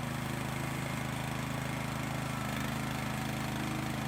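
Band sawmill's small engine running steadily at an even idle.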